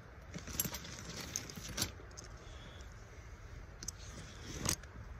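Handling noise as a paracord bracelet is worked loose from a nylon bag's strap: soft rustling of fabric with a few light clicks.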